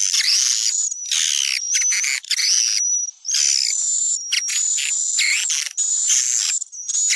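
Swiftlet lure call recording: a near-continuous run of buzzy, chittering swiftlet chirps with thin high steady whistles laid over them, broken by short gaps of a fraction of a second. It is the calling sound played to draw swiftlets in.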